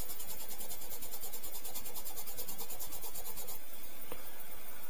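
Small knife pivot washer rubbed by hand against the flat face of a felt polishing wheel carrying polishing-paste residue: a steady scrubbing that polishes the oxide off the washer.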